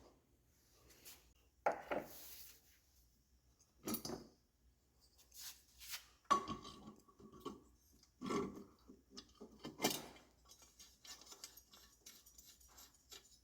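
Scattered light metallic clinks, knocks and rubbing of engine parts and hand tools being handled, with the sharpest clink about six seconds in ringing briefly.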